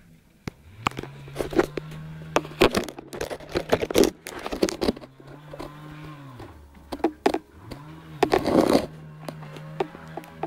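An engine running steadily, its pitch dropping and coming back up twice, under repeated knocks and clatters, typical of timber being handled and loaded.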